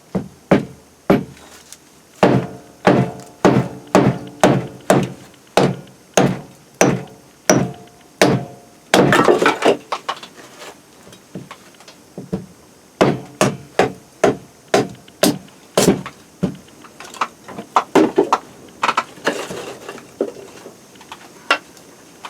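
A hand tool striking wood again and again, sharp blows about two a second in runs with short pauses, a few ringing briefly, thinning out near the end.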